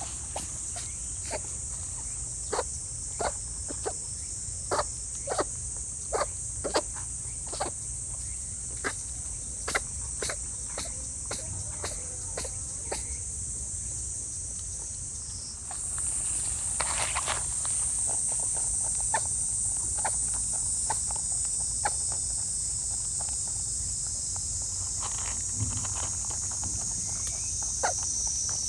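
A wild rabbit sneezing over and over, short sharp sneezes about once a second, coming less often in the second half; the rabbit is in distress and cannot stop sneezing. Insects drone steadily at a high pitch, louder from about halfway.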